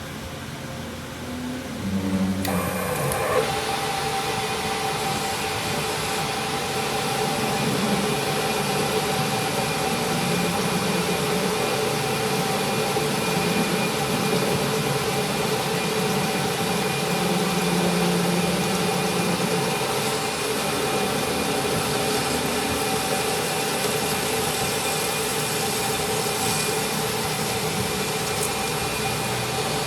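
A workshop machine running steadily with an even, constant hum that grows louder about two seconds in.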